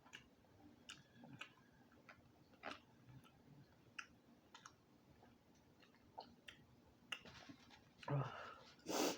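Close-miked wet chewing of fufu and mussel, with scattered short lip-smacking clicks. Two louder, noisier mouth sounds come near the end.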